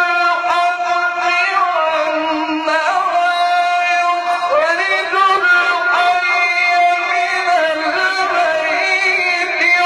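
A man's voice chanting Quran recitation in the melodic tajwid style through a microphone, long held notes alternating with ornamented runs that glide up and down.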